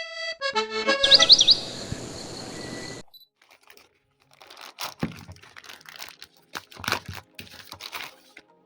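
A short musical jingle with a chirping sound effect, cut off about three seconds in, followed by irregular crinkling and clicking as a parcel is handled and unwrapped.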